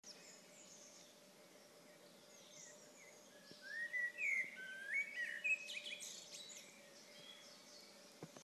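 Birds chirping: a cluster of quick rising chirps about four to six seconds in, over a faint steady hum and hiss.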